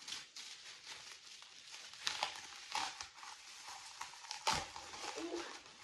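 Plastic bubble wrap crinkling and rustling as a book is unwrapped by hand, with many small crackles and one sharper crackle about four and a half seconds in.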